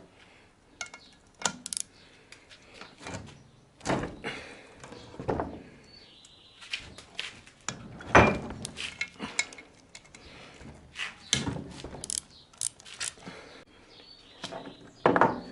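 Scattered metal clicks, clinks and knocks of a ratchet and 10 mm socket undoing the brackets on a Renault Logan cylinder head, with the loudest knock about eight seconds in.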